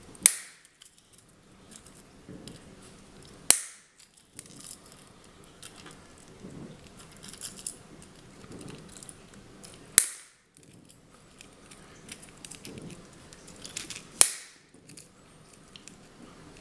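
Bahco side-cutting pliers snipping through the wire split rings of a fishing lure to take its hooks off. Four sharp snaps come a few seconds apart, with faint handling of the plastic lure and pliers between them.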